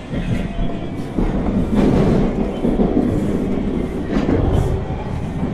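Toronto TTC T1 subway car running on its rails, heard from inside the car: a loud, steady rumble of wheels on track, with two louder clacks about two seconds and four seconds in.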